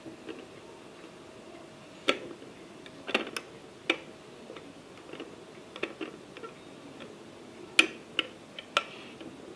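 Irregular sharp clinks and knocks of crockery being handled, about eight of them spread unevenly, over a faint steady hum that stops about three seconds in.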